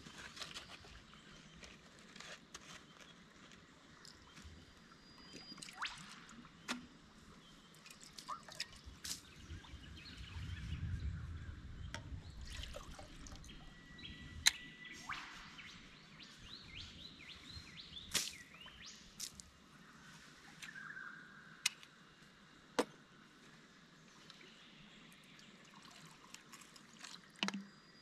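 Camp coffee-making: sharp clinks and knocks of a metal pot, cup and bottle being handled, with water poured and trickling.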